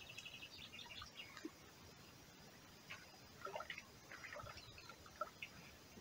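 A songbird singing faintly over a low outdoor hiss: a quick run of repeated high chirps at the start, then a cluster of varied, lower notes from about three to five seconds in.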